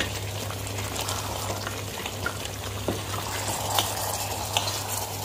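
Coconut-milk duck curry simmering and bubbling in a non-stick pot, with a few small clicks and scrapes from the spatula over a steady low hum.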